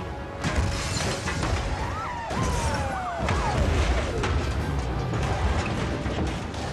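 Action-film soundtrack: music under a heavy low rumble of explosions, with several sharp crashes of cars smashing into each other and metal crunching.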